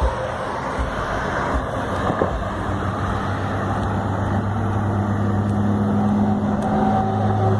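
Road traffic, with a motor vehicle's engine hum growing steadily louder from about a third of the way in as it approaches, over a constant rush of noise.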